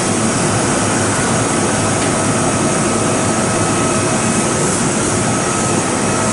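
Kintetsu 2680 series electric train starting to pull away from a station platform: a loud, steady mechanical rush with a faint high hum.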